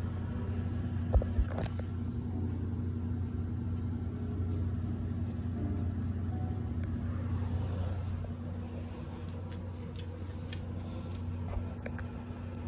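A steady low hum, with two soft thumps about a second in.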